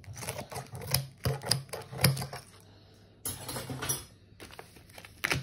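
Clear plastic bag crinkling and crackling as it is cut open and handled: a quick run of sharp crackles and clicks for about two seconds, a pause, then a short rustle and one more click near the end.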